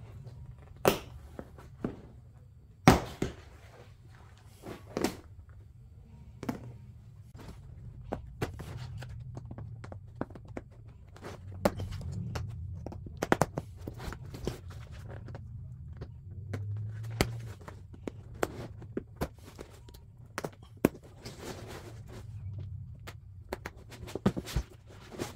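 Irregular sharp snaps and clicks as a vinyl car seat cover is pulled apart by hand, its panels and foam-backed layers tearing loose from the seat foam, over a steady low hum.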